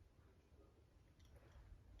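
Near silence: room tone with a faint low hum and a few faint clicks about a second in.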